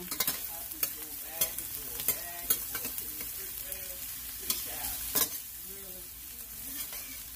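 Metal spoon stirring and scraping chopped onions and green peppers around a stainless steel pot as they sauté, with a steady sizzle and sharp clinks of the spoon against the pot every second or so.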